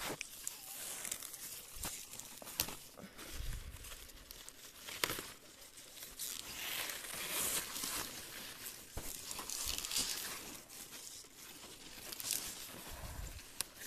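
Leaves of leafy green vegetable plants rustling and crinkling as a hand picks shoots and stalks from them, with a few sharp clicks scattered through.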